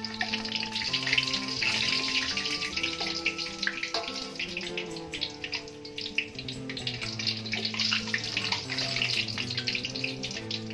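Jalangkote (filled pastries) deep-frying in hot oil in a wok: a steady sizzle full of small crackles, with background music playing held notes underneath.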